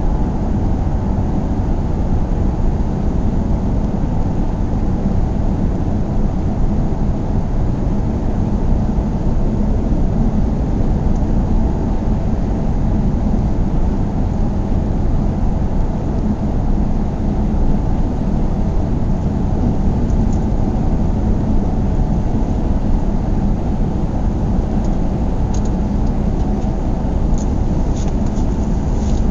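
A car being driven at a steady pace: a constant low rumble of engine and tyre noise with a faint steady hum. A few faint clicks come near the end.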